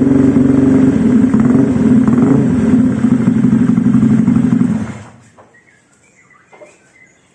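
Honda Vario 125 scooter's single-cylinder four-stroke engine running steadily through an ABF Racing GP D-Series aftermarket silencer with its baffle fully in, then stopping about five seconds in.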